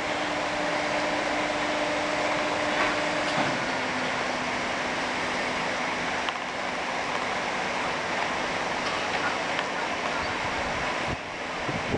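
Steady mechanical hum of the Anderton Boat Lift's hydraulic machinery as a caisson moves, a low drone over a rushing haze; the drone drops slightly in pitch about three and a half seconds in.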